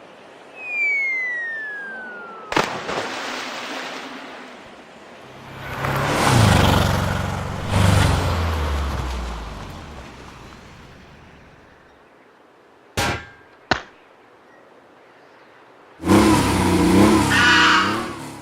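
A string of separate sound effects. A thin falling whistle ends in a sharp hit about two and a half seconds in, and a noisy rush swells and fades with falling low tones between about six and ten seconds. Two short sharp clicks come near thirteen seconds, and a dense burst of sound starts about sixteen seconds in.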